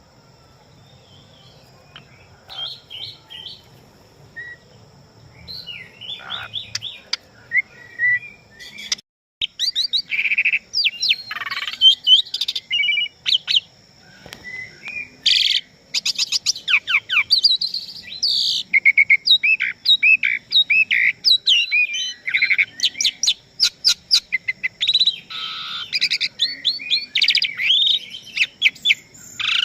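Asian pied starling (jalak suren) singing a varied song of quick whistled and chattering notes. It is sparse and quieter at first, then turns dense and loud after a short break about nine seconds in.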